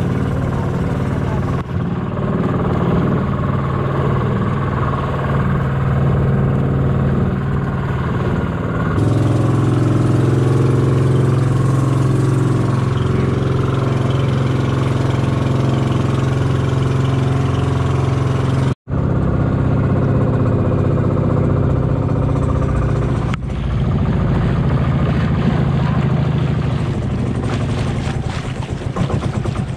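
Inboard engine of a motorized outrigger boat (bangka) running steadily under way, with a brief dropout about two-thirds through.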